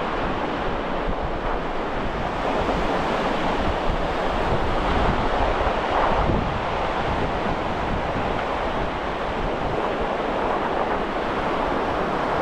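Steady wind rushing over the microphone, with a low gusty buffeting, over a constant hiss of surf on the shore.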